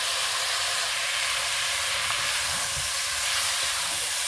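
Chicken and fried potatoes sizzling in a frying pan: a steady, even hiss.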